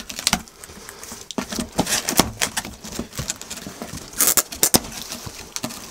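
A cardboard box being opened by hand, its flaps pulled back and handled, giving irregular crackles and scrapes with a louder cluster about four seconds in.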